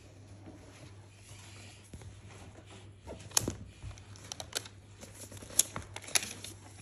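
Unboxing handling noise: a MacBook Pro's aluminium body and its cardboard box being handled, quiet at first, then from about three seconds in a run of sharp clicks and taps as the laptop is gripped and lifted out of the box tray.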